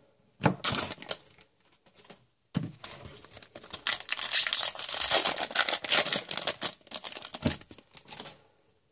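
A trading card pack wrapper being torn open and crinkled by hand: a short rustle, then several seconds of crackling, tearing wrapper with sharp clicks.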